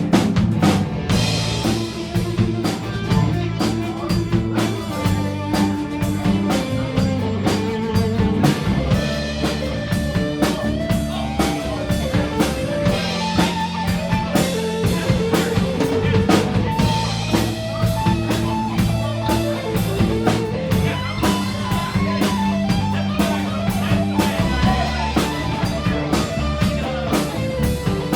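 Live blues-rock band playing an instrumental passage: a drum kit with rimshots and bass under a guitar playing a stepping melodic lead line.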